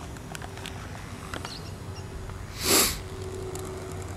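A single short sniff about two-thirds of the way through, close to the microphone, over a faint steady hum and a few light ticks.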